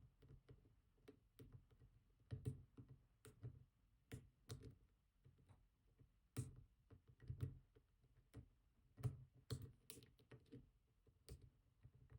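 Faint, irregular clicks and light scraping of a steel hook pick working the pin stacks inside a GEGE pExtra+ lock cylinder, with a tension bar in the keyway, during single-pin picking.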